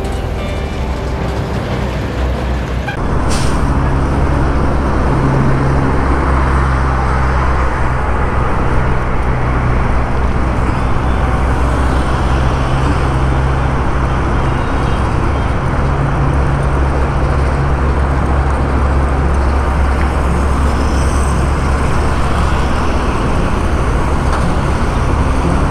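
A heavy container truck passes close by, its engine and tyres loud on the road. About three seconds in, this gives way to the steady drone of a vehicle engine with tyre and wind noise, heard from a vehicle driving along behind a slow heavy truck.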